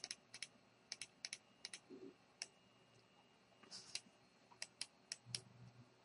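Faint, irregular clicking of a computer keyboard and mouse: a dozen or so sharp clicks, many in quick pairs.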